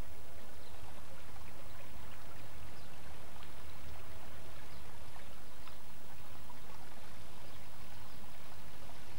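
Water of a shallow stream running over stones, with faint scattered ticks and small splashes, over a low steady hum.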